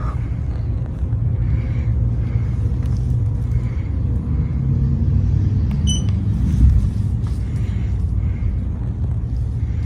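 TroposAir Cresswind ceiling fan running in downdraft: air moving over the microphone gives a steady low rumble, with a faint soft swish repeating a little faster than once a second. A brief high beep comes about six seconds in.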